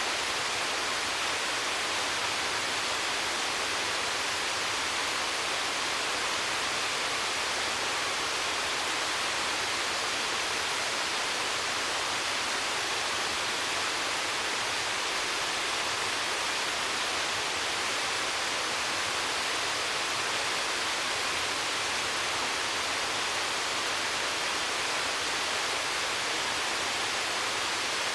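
Waterfall pouring into a mountain stream: a steady, even rush of falling water with no change throughout.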